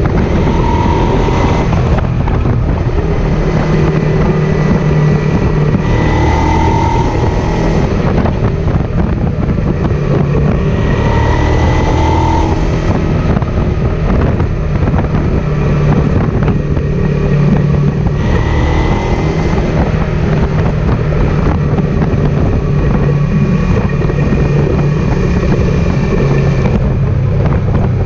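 Suzuki SV650S's V-twin engine running while the motorcycle is ridden, with steady wind rush over the microphone. The engine note shifts in pitch a few times.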